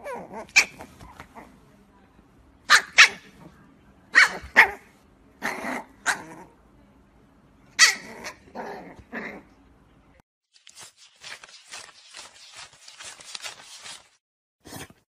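A small puppy barking in short, separate yaps, about ten over ten seconds, some in quick pairs. Then a stack of banknotes riffled by thumb, a rapid papery flutter lasting a few seconds.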